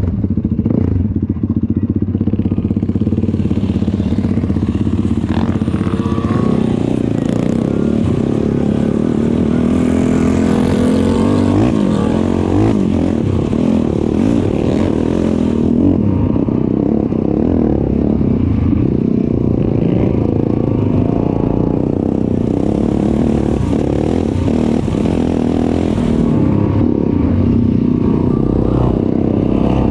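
ATV engine running under way on a ride, its pitch rising and falling with the throttle.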